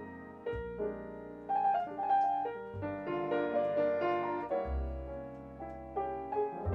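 Grand piano playing jazz: chords and short melody runs, with a low bass note sounding about every two seconds.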